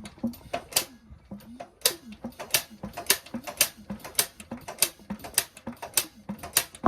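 Ignition of a JAP 5 engine being turned over by hand for a spark test: a run of sharp snapping ticks, slow at first and then about three a second.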